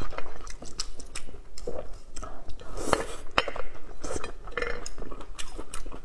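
Close-up eating sounds of grilled oysters on the half shell: chewing, with repeated sharp clicks of oyster shells and chopsticks against a plate.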